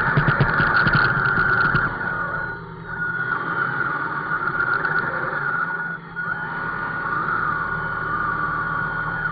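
Radio-controlled model vehicle's electric motor and gears whining at a high pitch, with a rattling clatter for the first two seconds. The whine eases off and picks up again twice.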